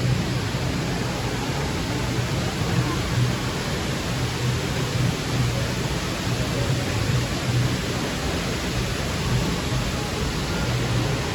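Steady rushing ambience of a busy shopping-mall interior, with faint crowd chatter under it.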